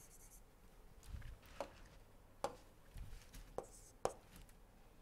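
Faint ticks and light scratching of a stylus writing on a tablet screen, about five sharp taps spaced roughly half a second to a second apart.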